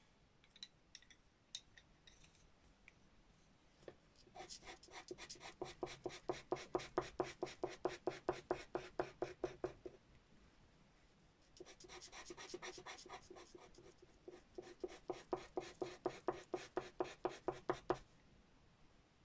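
Pastel pencil working on pastel paper in rapid, even strokes, about five a second, in two runs of several seconds with a short pause between. A few light ticks come before the first run.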